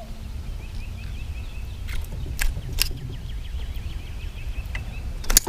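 Pondside outdoor sound: a small animal's high chirping call repeated quickly and evenly over a low rumble, with a few sharp clicks, the loudest near the end.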